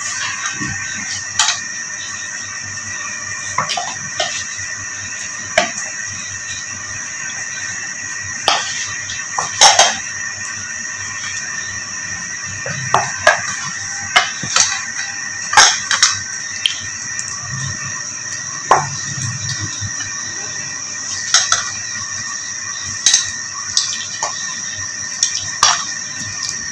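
Raw mutton trotters knocking and clattering against a metal pan at irregular moments, about a dozen times, as hands rub them with flour and salt. Under the knocks runs a steady hiss with a constant high whine.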